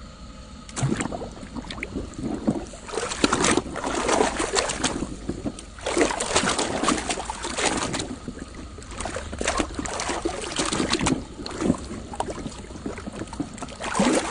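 Water splashing and sloshing in irregular bursts as muddy plastic toy vehicles are washed by hand.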